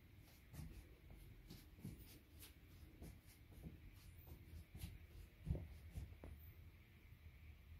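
Faint handling noises from working at a potted aloe vera plant: scattered light clicks and rustles, with one sharper knock about five and a half seconds in.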